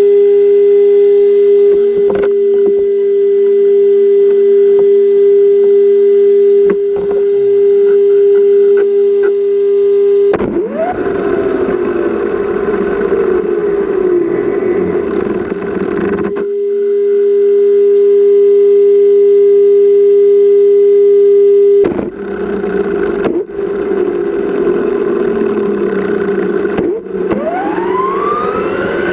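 Traxxas Slash 4x4 RC car's electric motor and drivetrain heard from an onboard camera: a steady tone while it waits, then whining that rises and falls over road rush as it drives. The steady tone returns for a few seconds midway, and a rising whine near the end marks it speeding up again.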